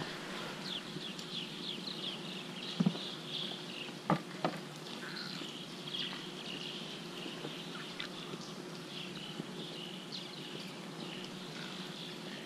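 Many short, high chirps from small creatures, repeating throughout over a faint low steady hum, with a few sharp knocks about three and four and a half seconds in.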